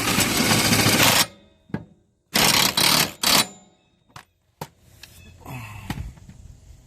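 20-volt DeWalt cordless impact wrench with a 15/16 socket hammering in two bursts of about a second each, the second broken into short pulses.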